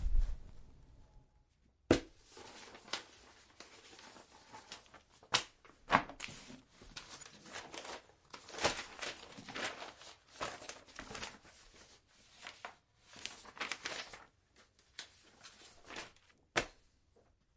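Paper, books and a folder being handled: irregular rustling and flipping of pages with several sharp knocks, the loudest about two and six seconds in.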